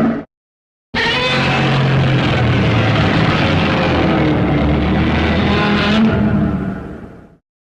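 Godzilla's roar from the 1954 film, made by rubbing a resin-coated leather glove along the strings of a double bass and slowing the recording down. It is one long, harsh call of about six seconds whose pitch wavers slowly, and it fades out near the end.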